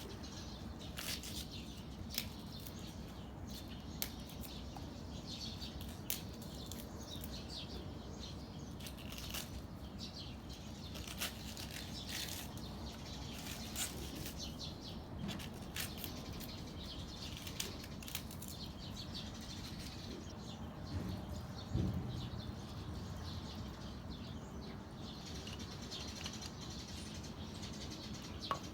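Small birds chirping here and there over a steady low background rumble.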